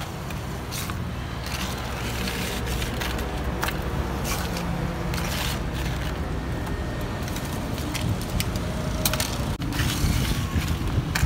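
Ice cubes being scooped out of a cooler bucket into a plastic cup, with irregular clattering and crunching of ice.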